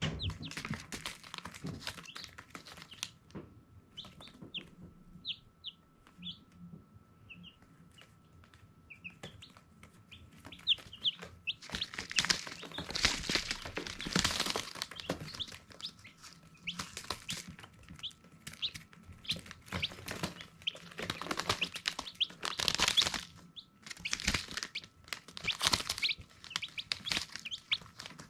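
Baby chicks peeping in short, high, separate chirps, with bouts of rustling noise from about twelve seconds in.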